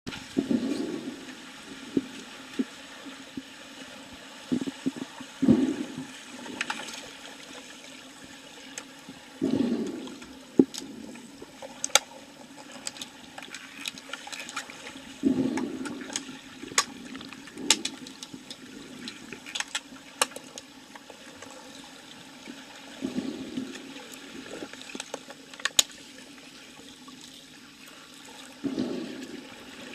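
Underwater sound of a swimming pool, heard from a submerged camera: muffled swells of rushing water and bubbles every few seconds, with many sharp, brief clicks and knocks scattered through.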